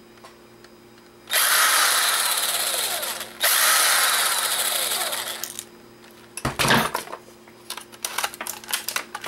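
Cordless drill-driver spinning in two runs of about two seconds each, backing screws out of a plastic camera housing. A dull thud follows about six and a half seconds in, then light clicks of small plastic parts being handled.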